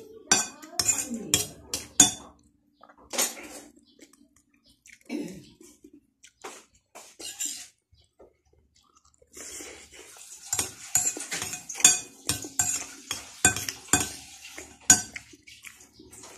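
Metal fork clinking and scraping against a ceramic bowl in quick runs of sharp clicks, with a quiet pause a little past the middle.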